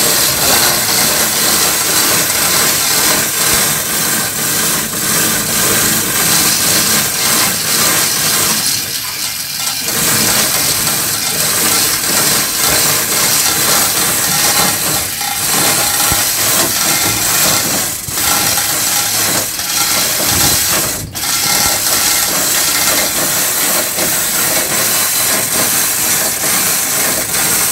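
Manual chain hoist rattling and ratchet-clicking as its hand chain is pulled, with a diesel engine's cylinder block hanging from it, over a steady hiss. The clatter eases briefly a few times.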